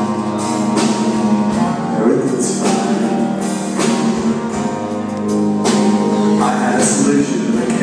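Music with sustained chords and a strong stroke every second or so, loud in the hall.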